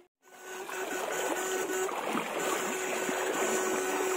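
Shallow river water splashing and rippling around a person's legs as he wades over a rocky streambed, with a steady whine running under it. The sound comes in just after the start, following a brief gap.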